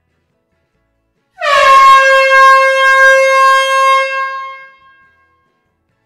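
An air horn sounds one long steady note in a closed hall. It starts about a second and a half in with a slight drop in pitch at the onset, holds for about three seconds, then dies away in the hall's echo.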